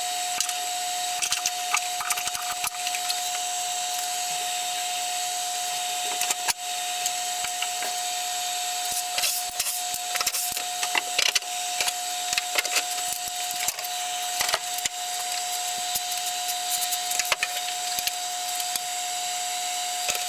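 Hand work on band saw parts: scattered clicks, knocks and rattles of tools and metal and wooden parts being handled. Under them runs a steady mid-pitched hum with hiss.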